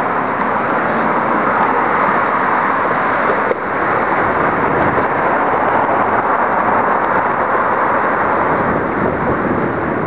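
Wind buffeting the microphone of a camera on a moving bicycle: a loud, steady rushing noise, with a brief click about three and a half seconds in.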